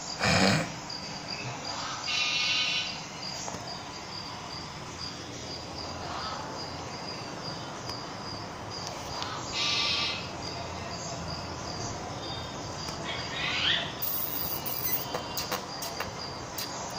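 Steady insect chirping in a fine, even pulse, with a few short bird calls over it, one of them sweeping upward. A brief louder noise comes right at the start.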